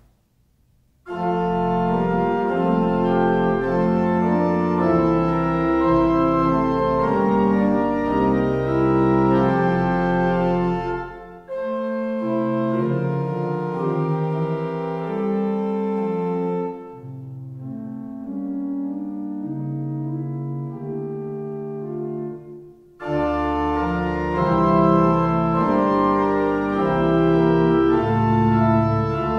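Pipe organ playing sustained chords with a deep 16-foot Subbass pedal line, starting about a second in. From about 11 seconds a flute-and-string registration (Gambe 8', Flöte 8') alternates with a quieter echo passage without the pedal. About 23 seconds in, the sound turns full and loud with Principal 8' and Octave 4' added.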